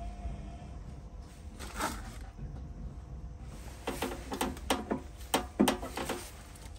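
Handling noise from plumbing work: a quick scrape about two seconds in, then a run of sharp knocks, rattles and short squeaks between about four and six seconds in, over a low steady hum.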